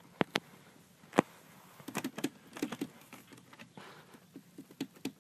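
Irregular sharp clicks and taps, like typing, coming singly and in short clusters, the loudest about a second in.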